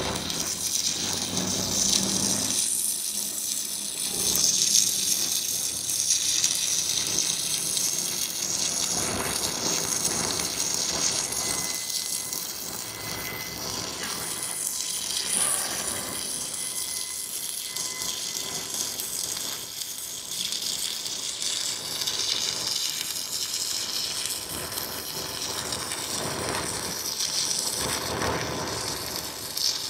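Shielded metal arc (stick) welding with a 3/32-inch E316L-16 stainless steel electrode at 80 amps DCEP: the arc burns with a steady, high crackling hiss.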